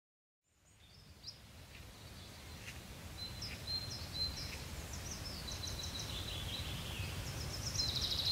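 Outdoor ambience fading in from silence about half a second in: birds chirping over a steady low background noise, slowly growing louder.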